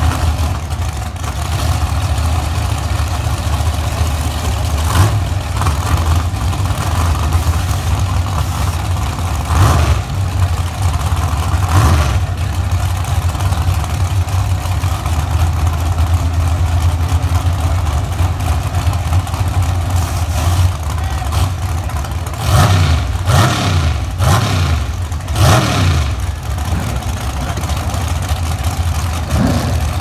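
Drag race car engines idling at the starting line with a steady low rumble, broken by a few sharp throttle blips and then a quick run of rising revs about three-quarters of the way through, as the cars get ready to stage.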